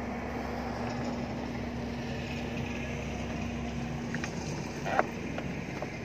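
Steady low hum of an engine running, with a held tone in it that fades out about four seconds in. A sharp click about five seconds in as the cabin air-conditioning filter is pressed back into its housing.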